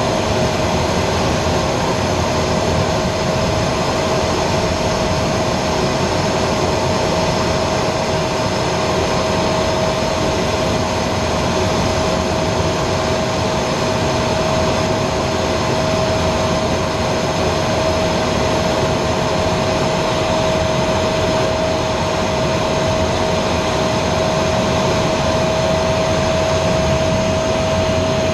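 Aero L-29 Delfín jet trainer in flight, heard from inside its cockpit: the steady noise of its single turbojet and the rushing air, with a constant whine.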